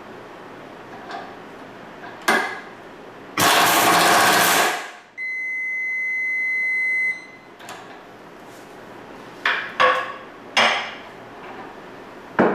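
A pneumatic impact wrench runs for about a second and a half, tightening a bolt. It is followed by a steady high beep lasting about two seconds from the torque controller, signalling an OK, in-tolerance tightening. Several short clicks and knocks follow as the tools are handled.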